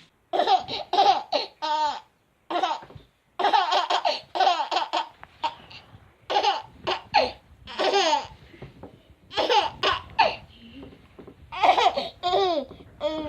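A baby laughing in repeated high-pitched bouts, each a quick run of short giggling bursts, with brief pauses between them.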